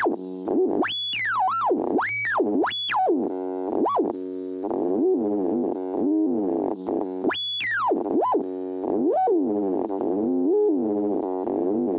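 Radio scanning through frequencies: whistling tones sweep quickly up and down in pitch, again and again at irregular intervals, over a steady buzzing hum, like a dial being tuned across stations.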